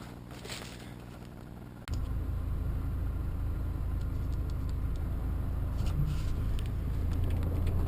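Steady low rumble of a vehicle engine running. It starts abruptly about two seconds in, after a quieter low hum.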